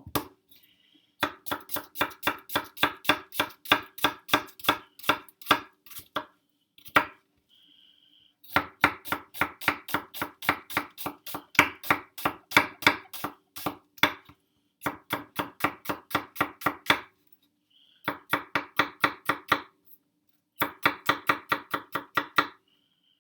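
Kitchen knife, a Victorinox, chopping food in quick, even strokes of about four a second, in five runs with short pauses between.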